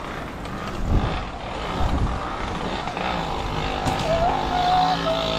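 Street traffic noise with a motor vehicle's engine running close by, its steady hum setting in about three seconds in, and a short wavering squeal a little later.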